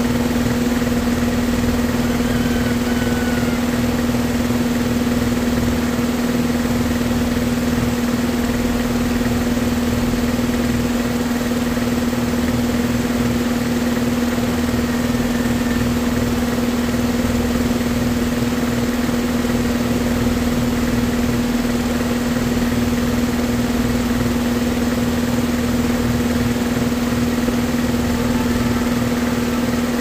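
A steady machine hum: a constant low tone with a fainter overtone over an even background noise, unchanging throughout.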